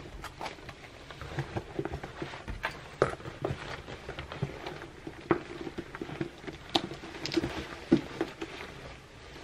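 Clothing rustling as a cotton shirt is pulled on, mixed with irregular light clicks and knocks from handling a shoulder bag and its strap. The sharpest clicks come about three, seven and eight seconds in.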